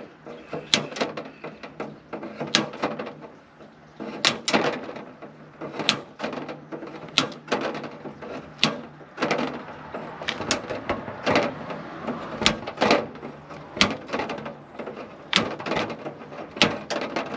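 Wire cutters snipping through the ribs of a plastic egg-crate grid, one sharp snap per rib, about one or two snaps a second at an uneven pace.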